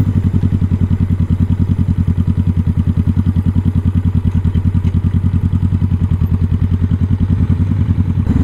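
Motorcycle engine idling at low revs with a steady, rapid, even pulse while the bike coasts to a stop.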